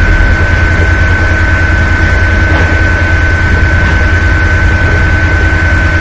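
Loud, steady mechanical drone, low and rumbling, with a constant high-pitched whine running through it.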